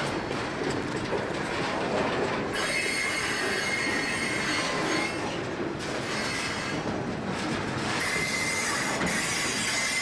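Southern Pacific freight cars rolling slowly past, steel wheels rumbling and clacking on the rails. A high-pitched wheel squeal sets in about two and a half seconds in, fades, and returns from about eight seconds.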